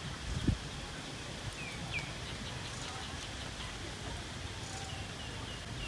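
Rural outdoor ambience: a steady background hiss and rumble with small birds chirping faintly now and then, several short chirps in a row near the end. A single low thump comes about half a second in.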